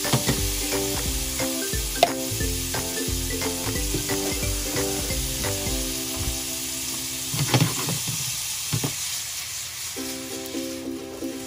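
Sliced carrots sizzling in a hot frying pan, with a few sharp clinks of metal on the pan, over background music.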